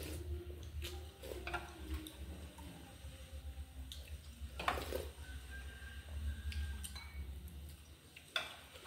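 Eating noodle soup: spoons and chopsticks clinking against ceramic bowls, with slurping of broth. A few separate clinks, the loudest about halfway through, over a low steady hum.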